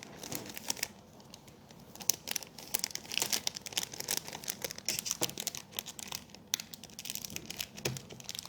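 Packaging crinkling and rustling in the hands as brush pens are put back into it, a run of small crackles that grows busier about two seconds in.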